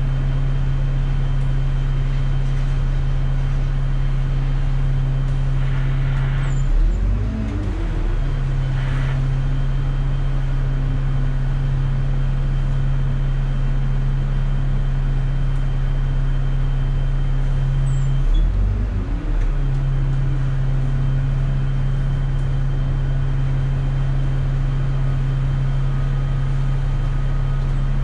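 Dennis Dart single-deck bus's diesel engine humming steadily as the bus drives. Twice, about seven seconds in and again near eighteen seconds, the engine note briefly swings up and down before settling back to the steady hum.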